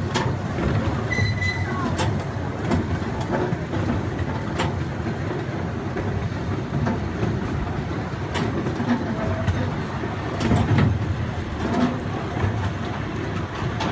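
Miniature park train running along its track, heard from an open passenger car: a steady rumble with occasional sharp clacks from the wheels and couplings.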